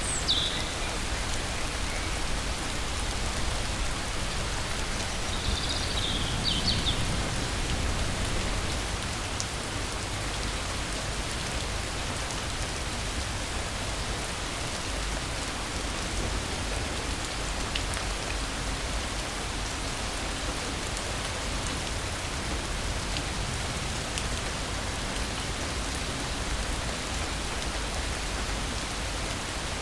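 Steady rain falling. A short high chirp sounds at the start and a brief cluster of high chirps about six seconds in.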